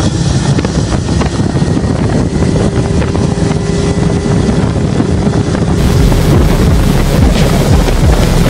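Mercruiser 454 Magnum EFI big-block V8 powerboat running at speed, its steady engine drone mixed with the rush of spray off the hull and wind buffeting the microphone. The sound grows fuller and a little louder about six seconds in.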